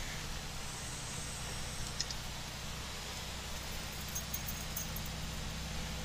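Volvo VNL 730 semi truck cab at highway speed in the rain: steady engine drone under a constant hiss of tyres on wet pavement, with a few faint clicks and ticks.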